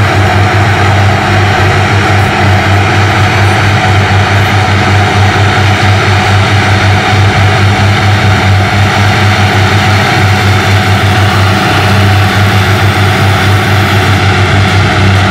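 Two Deutz-Fahr Agrotron tractors working in the field under load, each pulling a rotary harrow and seed drill combination, their engines running at a steady drone that does not let up.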